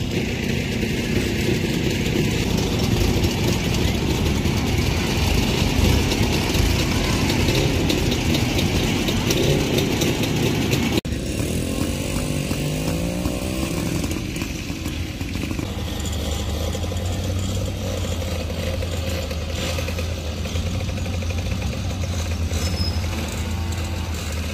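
Vintage cars and motorcycles driving slowly past in a line, engines running at low speed, with an abrupt jump in the sound about halfway through. After the jump, a passing engine rises and falls in pitch, then a steady low engine drone carries on as old motorcycles and a car go by.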